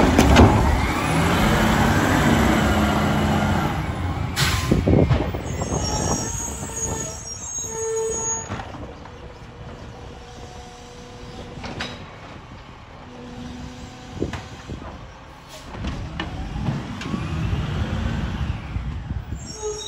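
Mack LR Labrie Automizer side-loader garbage truck running and pulling away, loudest in the first few seconds. It then works more faintly at a distance as its automated arm tips the next cart, and speeds up again near the end.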